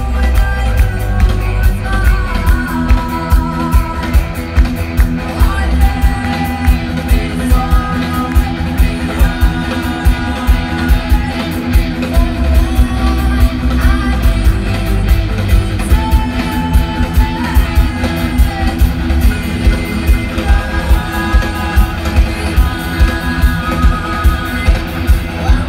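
Live rock band playing loud through a big stage PA: electric guitars, bass and a steady drum beat, with a woman singing.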